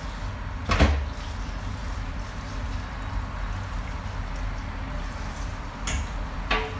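Knocks and clatter from things being handled in a kitchen sink: one sharp knock about a second in and two lighter ones near the end, over a steady low rumble.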